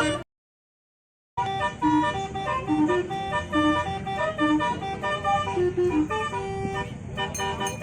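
Telolet horn, a multi-tone vehicle horn, playing a quick melody of short and held notes over a low rumble. It starts about a second and a half in, after a brief silence.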